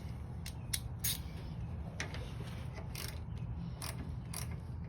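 Scattered light metallic clicks, about eight at uneven intervals, from hand tools fitting and tightening the nut on the starter's cable terminal.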